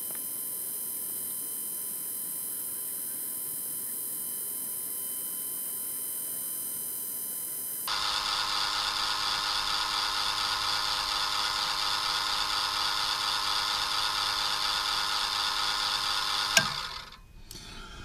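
Small 24-volt DC gear motor driving a worm gear, heard sped up as a steady whine. About eight seconds in it turns louder with several tones, then stops abruptly with a click near the end as it reaches its stop.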